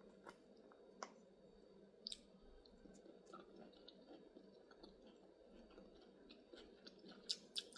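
Near silence with faint clicks of someone eating from a plastic takeaway salad pot: a few scattered, then a quick cluster near the end.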